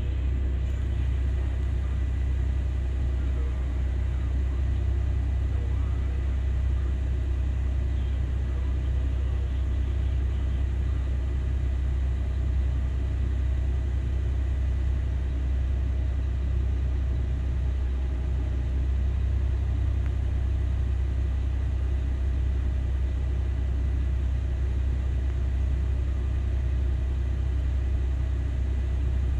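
Steady low diesel rumble of a Cat 6020B hydraulic mining shovel working and a large haul truck standing beside it as it is loaded.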